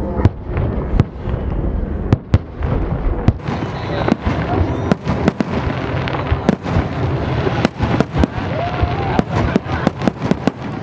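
Fireworks display: shells bursting in a rapid, irregular series of sharp bangs over a continuous rumble, the bangs coming thicker after the first few seconds.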